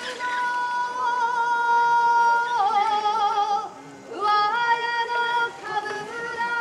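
A high voice sings long held notes that step between pitches with wavering ornaments, in two phrases separated by a short break a little past the middle. This is the sung accompaniment to which a kenbu sword dance is performed.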